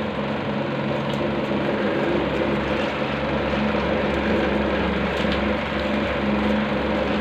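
Steady motor hum with a constant low drone, and a few faint light clicks.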